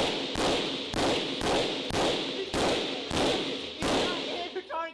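Gunfire fired in rapid succession, a sharp shot roughly every half second, about nine in all, each with a short echoing tail.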